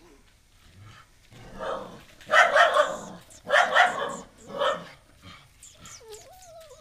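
An adult dog barking threateningly at a young puppy in three loud bouts, close together in the middle. Near the end comes a thin, wavering whimper from the puppy.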